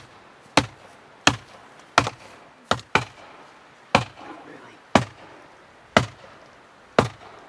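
Steel sledgehammer striking the top of a locust-wood fence post, driving it into the ground: about ten sharp blows, a little quicker at first and then roughly one a second, one of them a quick double hit.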